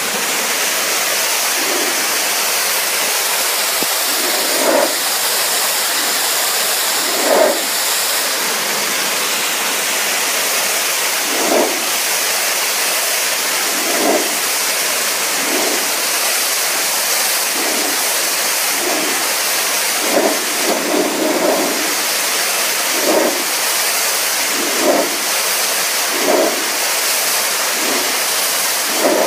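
High-pressure water jet from a pressure-washer lance hissing steadily as it blasts dirt off tiles, with short, uneven lower surges of splashing every second or two as the jet moves over the surface.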